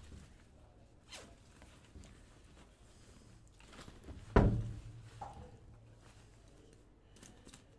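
Backpack zips pulled in several short rasps and the bag's fabric rustling as it is opened and handled. About halfway through, a single sharp thump is the loudest sound.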